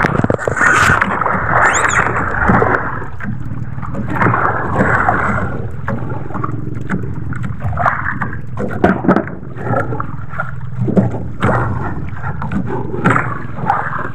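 Sea water sloshing and splashing against the hull of a small outrigger boat, over a steady low hum, with occasional short knocks.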